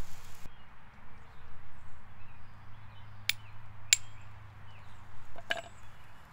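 Flint and steel being struck: three sharp, short clicks of the steel striker glancing off the flint to throw sparks onto cattail-down tinder, the first two about half a second apart and the third a second and a half later.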